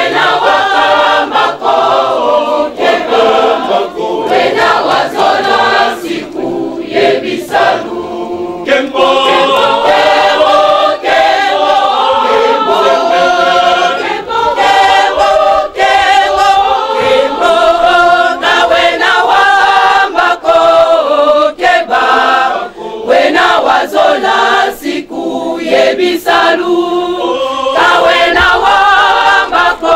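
Church choir singing in Lingala-style call and phrase, with brief pauses between sung phrases.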